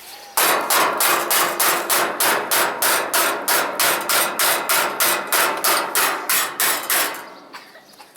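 Rapid, even hammer blows, about four a second, ending about a second before the end: tapping the air-conditioning unit's bent metal grate back into shape.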